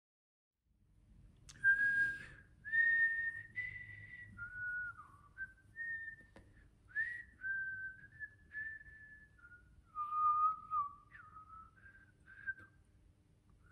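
A woman whistling a slow tune through pursed lips: single clear held notes with short slides between them, starting about a second and a half in and stopping shortly before the end.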